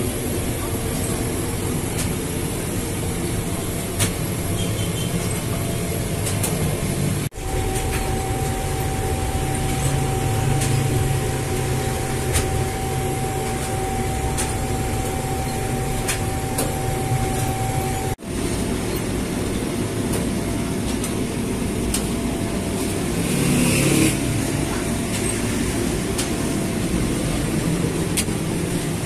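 Bakery dough-handling machinery running steadily: the rollers and conveyor of a semi-automatic taftoon bread line. A steady whine sounds for about ten seconds in the middle, with light scattered clicks and a brief louder rush near the end.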